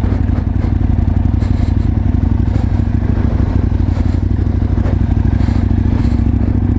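Aprilia Tuono 1000 R's V-twin engine running steadily as the bike is ridden across grass, without revving.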